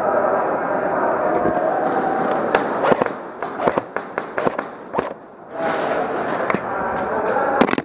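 Airsoft gunfire in rapid, irregular strings of sharp snaps, starting about two and a half seconds in, pausing briefly, then resuming near the end. Under it runs a steady mechanical hum.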